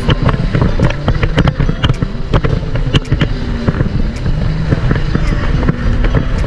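Jet ski running at speed across choppy sea, with wind rumbling on the microphone and many sharp splashes and knocks.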